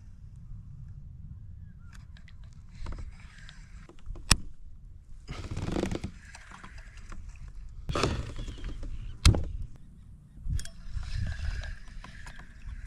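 Scraping and rustling handling noise on a kayak in three short spells, with two sharp knocks about four and nine seconds in, over a low steady rumble.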